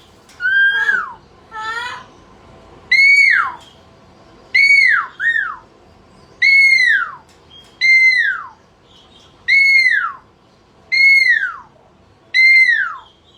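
A parrot calling over and over, about one call every one and a half seconds. Each call is a loud, whistle-like note that rises briefly and then slides down.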